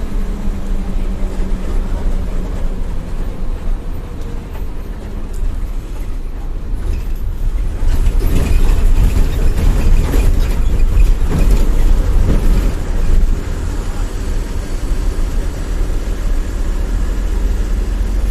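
Bus engine and road noise heard from inside the moving bus's cabin: a steady low rumble that grows louder and rougher about eight seconds in, then eases off a little.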